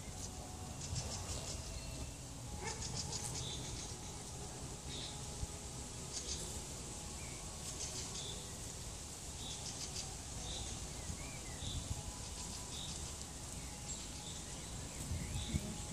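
Outdoor ambience of small animal calls: a short high chirp repeated about once a second, with bursts of fast, high-pitched clicking, over a low rumble.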